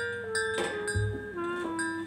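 Background music: an instrumental melody of held notes stepping downward over a bass line.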